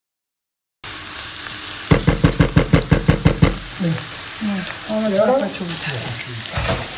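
Chopped onion and carrot sizzling as they fry in a nonstick pan, stirred with a silicone spatula; the sound starts abruptly just under a second in. Between about two and three and a half seconds in comes a quick, regular run of about a dozen loud knocks.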